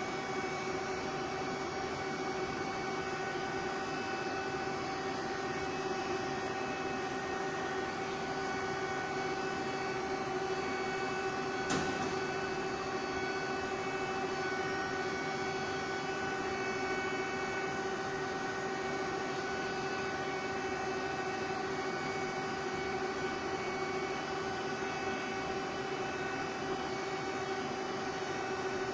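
Large CNC machining center running under power: a steady machine hum with several constant tones over a low rush, unchanging throughout. A single sharp click about twelve seconds in.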